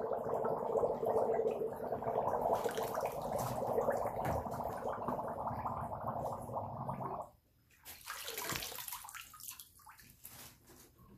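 Greens bubbler running: an air blower forcing bubbles through a tub of wash water, a steady rushing, bubbling churn with a faint hum. It cuts off abruptly about seven seconds in, leaving a few faint splashes.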